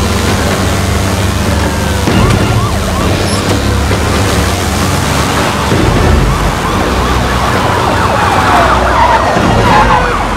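Police car sirens, several at once, wailing and yelping over one another in rising and falling sweeps, over the low rumble of car engines.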